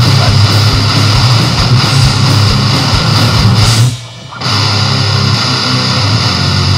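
Loud guitar-driven rock music, dense and steady. It drops out for about half a second around four seconds in, then comes back in.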